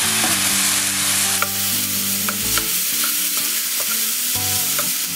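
Sliced champignon mushrooms and onion sizzling in vegetable oil in a frying pan, stirred with a wooden spatula that knocks and scrapes the pan now and then.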